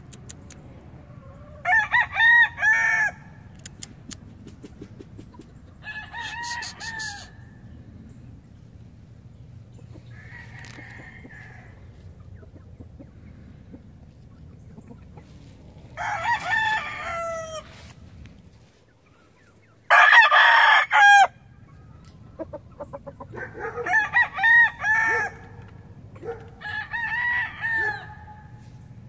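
Boston Roundhead gamecock calling in a series of about seven short crows and clucks, each lasting a second or so. The loudest and harshest call comes about twenty seconds in.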